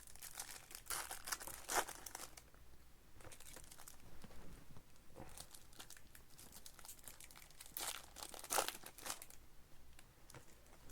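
Plastic wrappers of baseball card packs and blaster boxes crinkling and tearing as they are ripped open by hand, in irregular rustles with a few louder crinkles.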